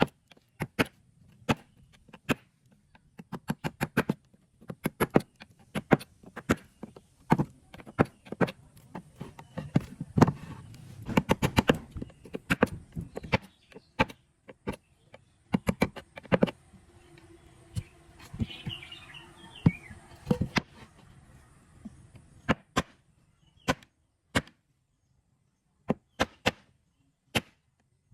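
Irregular sharp knocks and taps of hand tools working wood, some in quick runs of several strikes and some alone, with short pauses between.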